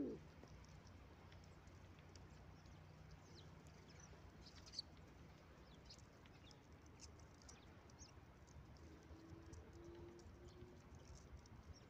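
Near silence: faint outdoor ambience with scattered faint high ticks and one slightly sharper click about five seconds in.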